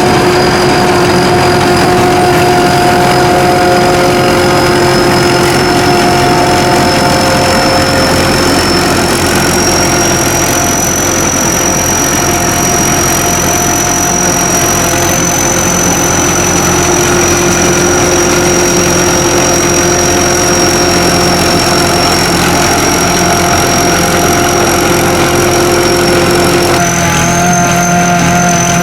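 Sakpattana SS-200 mini combine harvester running steadily, its engine and machinery making a constant drone with a high whine that slowly rises a little in pitch. The sound shifts abruptly about a second before the end.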